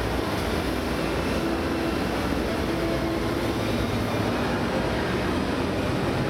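Replica steam locomotive of the Hogwarts Express ride train standing at the platform, giving a steady rumble and hiss as steam vents from its chimney.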